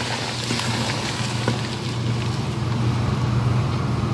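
Steady low hum with an even hiss from a gas stove heating a pot of rice and water.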